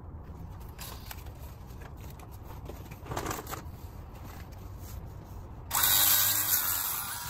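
A small cordless grinder with a sanding disc switching on abruptly near the end and running loudly and steadily, abrading rust from the wheel-bearing bore of a steering knuckle to prepare it for a new bearing. Before it, only faint handling clicks and rustling.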